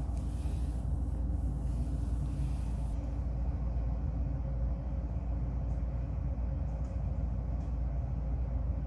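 Steady low rumble with no clear source, and a few faint ticks in its second half.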